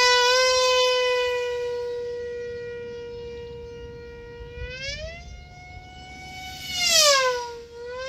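Electric F3E pylon-racing model plane's motor and propeller giving a high, steady whine. Its pitch climbs about five seconds in, then it is loudest and drops sharply in pitch as the plane passes close, before steadying again.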